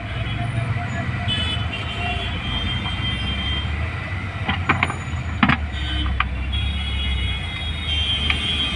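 Road traffic noise: the steady rumble of passing vehicles, with a few sharp knocks about five seconds in.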